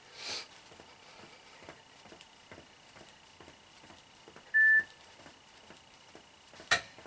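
Sneakers tapping lightly on foam floor mats about three times a second as a person shuffles weight from foot to foot, with a brief breath just after the start. About halfway through comes a single short electronic beep, the loudest sound, and near the end a sharp click.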